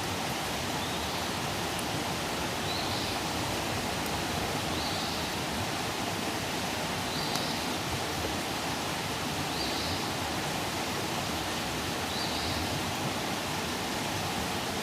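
Outdoor campfire burning with a steady rushing hiss and a few faint crackles. A short high-pitched chirp repeats about every two seconds.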